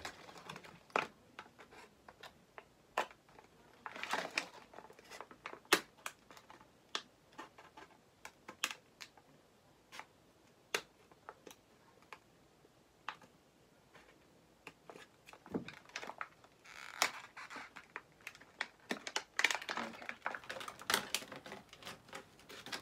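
Plastic doll packaging being handled: crinkling and rustling in a few patches, with scattered sharp clicks and taps.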